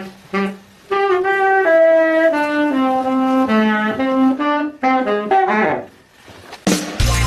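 Saxophone playing a slow melody of clean held notes that step up and down, with short breaths between phrases. Near the end, loud band music with drums and bass cuts in.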